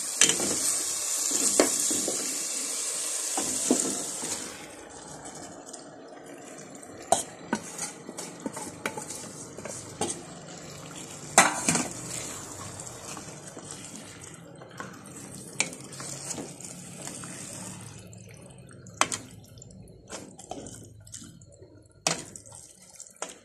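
Onion masala sizzling loudly in a pot over raised heat, the hiss dying down after about four seconds. Then a wooden spoon knocks and scrapes against the pot as marinated raw chicken pieces are stirred in, with scattered sharp knocks.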